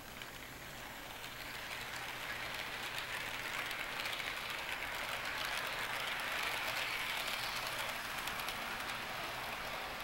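HO-scale model freight cars rolling along the track, a steady rolling clatter with fine clicks of the wheels on the rails. It grows louder as the cars pass close, is loudest about six seconds in, and then eases off.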